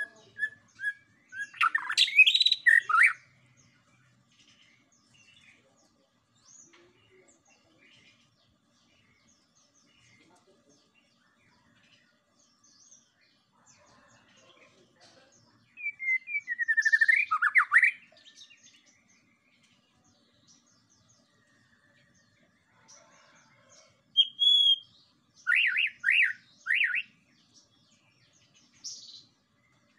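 White-rumped shama (murai batu) singing in three short bursts of rapid, varied whistled phrases with long pauses between them; the last burst ends in a run of four quick repeated notes.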